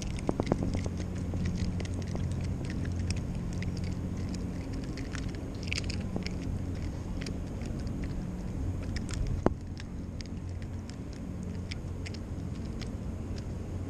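A steady low engine drone, with scattered small clicks and taps as a small snapper is hoisted on the fishing line and handled, and one sharper click about nine and a half seconds in.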